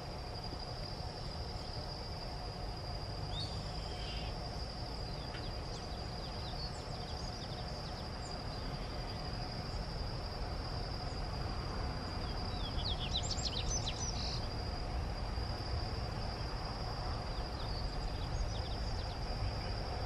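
Insects drone steadily on one high note, over a low rumbling background noise and a fainter lower steady hum. A bird gives a short burst of quick chirps about two thirds of the way through.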